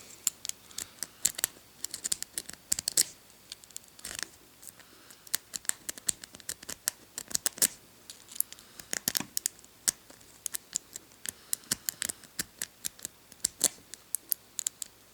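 A rake pick scraping back and forth over the pin tumblers of a Master Lock padlock held under a tension wrench: rapid, irregular metallic clicks and scratches, several a second, as the pins are raked to open the lock.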